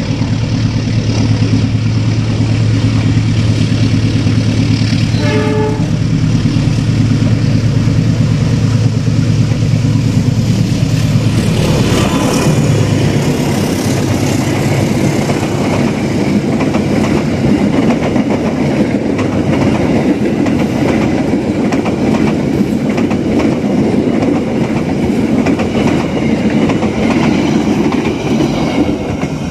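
KA Taksaka passenger train passing at speed. Its locomotive's engine drones steadily, there is one short horn blast about five seconds in, and from about twelve seconds in the coaches run by with continuous wheel-on-rail rattle and rushing noise.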